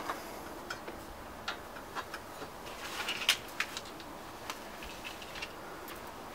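Light metal clicks and taps as a metal diverter plate is set down onto a car's intercooler and its mounting brackets, with a small cluster of louder taps about three seconds in.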